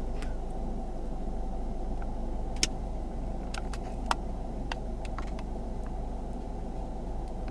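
Steady engine and road noise heard from inside a moving car's cabin, with a handful of short sharp ticks, the loudest about two and a half seconds in.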